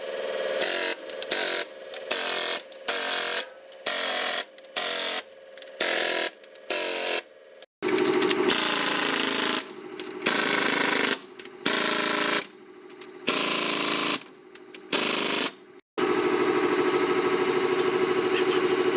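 An electric hand power tool running in short on-off bursts, each a second or less, its motor whine under a harsh hiss; near the middle and end it runs longer, with abrupt cuts between passages.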